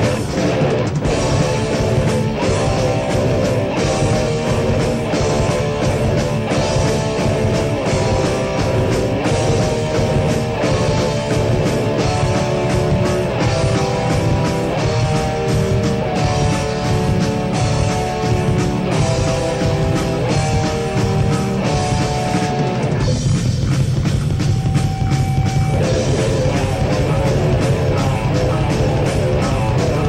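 Heavy metal band playing: a guitar melody of held, stepping notes over bass and steady drums. About 23 seconds in, the sound thins to a single held guitar note, and the full band comes back in about three seconds later.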